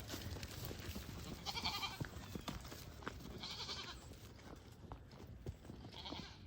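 Goats bleating: three separate bleats, each under a second, with a quavering pitch.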